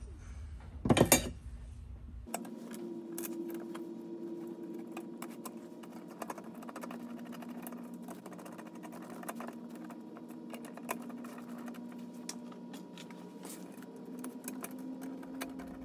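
Small metallic clicks and clinks of screws, nuts and a screwdriver as a bracket is fastened to an A/C condenser, with one louder clatter about a second in, over a faint steady hum.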